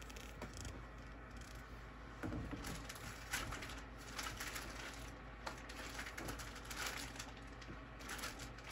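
Quiet room tone with a low hum and a few faint, light taps and rustles from polymer clay pens being handled and set down on a table.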